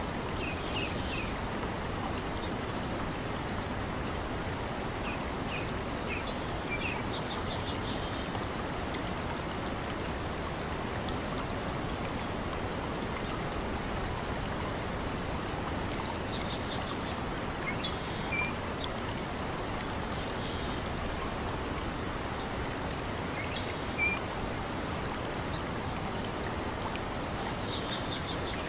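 Steady rush of running water, with small birds chirping in short bursts now and then.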